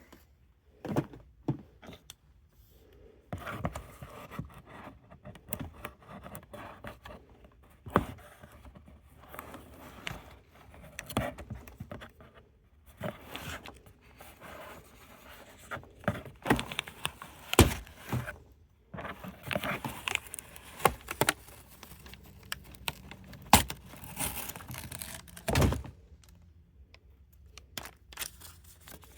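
A paper shipping label being peeled and scraped off a cardboard box after softening with hair-dryer heat: scattered scraping, tearing and rustling, with a few louder knocks as the box is handled.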